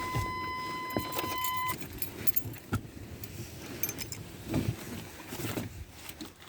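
Keys jangling with small handling clicks and rustles, after a steady electronic tone that stops abruptly near two seconds in.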